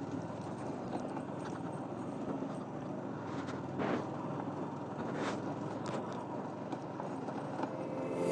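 Yamaha R15's single-cylinder engine running at low speed over a rough, stony dirt road, with a few irregular knocks and rattles as the tyres and suspension hit stones and bumps.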